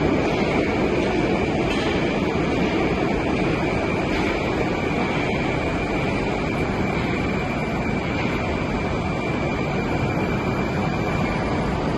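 Moscow Metro train at the platform, a steady low rumble with a thin, steady high whine that stops shortly before the end as the train begins to move.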